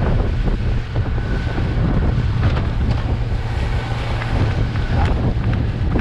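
Small passenger motorboat under way: a steady low engine drone under wind rushing over the microphone.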